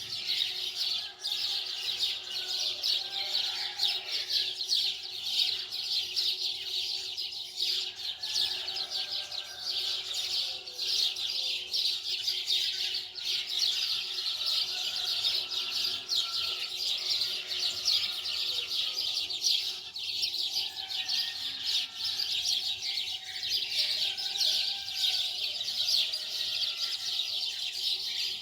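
Many small birds chirping continuously in a dense chorus, with a faint steady hum beneath.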